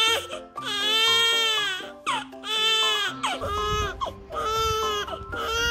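Newborn baby crying: a run of loud wails about a second long each, every one rising and then falling in pitch, with short gasps between them. Soft background music runs underneath.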